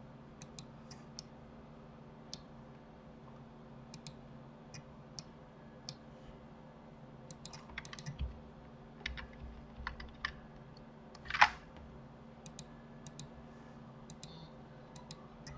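Faint, irregular clicks of a computer keyboard and mouse, with one louder click about eleven seconds in, over a low steady hum.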